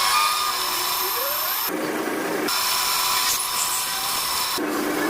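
Power saw with a spinning blade running with a steady high whine. Twice, about two seconds in and again near the end, the whine abruptly gives way for about a second to a lower, steady hum.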